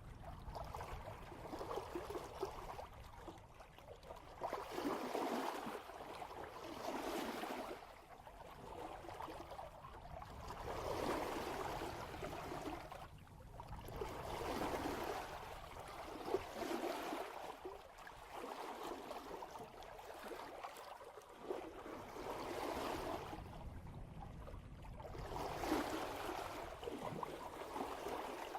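Water rushing and gurgling along the hull of a sailboat running downwind in a light breeze, swelling and easing in surges every two to three seconds.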